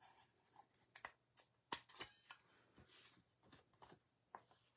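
Near silence broken by faint scattered clicks and a soft paper rustle as a plastic craft punch and a sheet of stamped cardstock are handled.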